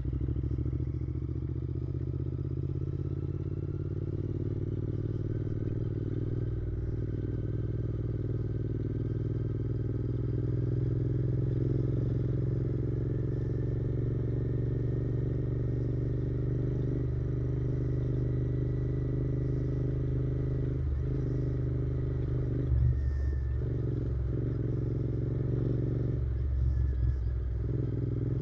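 Royal Enfield Interceptor 650's parallel-twin engine running steadily at a low, even pace while the motorcycle is ridden slowly along a dirt track. Its pitch rises a little over the first dozen seconds, and a few low thumps come near the end.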